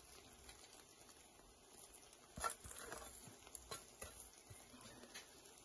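Near silence with a few faint, light clicks and taps from about two and a half seconds in: a metal plate knocking against the rim of the biryani pot as fried onions, cashews and raisins are tipped and spread over the rice by hand.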